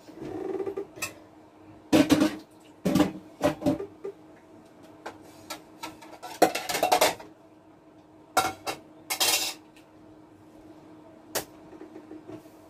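Dishes, a pot and cutlery clinking and clattering in several short bursts as rice is fetched and dished out.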